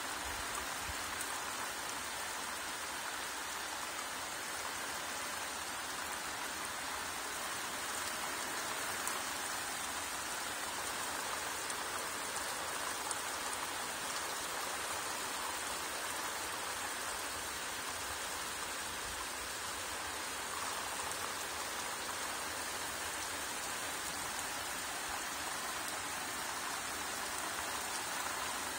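Steady rain falling, an even hiss with a few sharper drop ticks.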